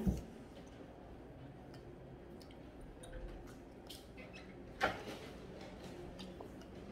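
Quiet mealtime sounds: small clicks of plastic training chopsticks against a ceramic bowl, with one louder knock about five seconds in.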